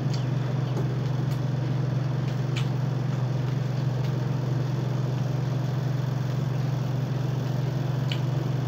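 A steady low hum, with a few faint crisp clicks as raw guava is chewed.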